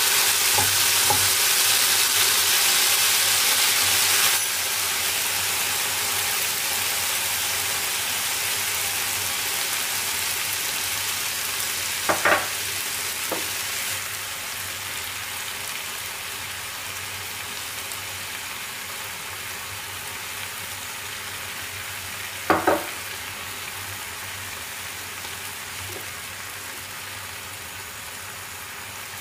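Diced chicken sizzling in oil in a non-stick frying pan while being stirred. The sizzle drops suddenly about four seconds in and then slowly fades. Two short knocks come about ten seconds apart.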